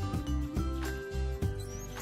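Background music with a steady beat, with a faint high squeaky chirp near the end.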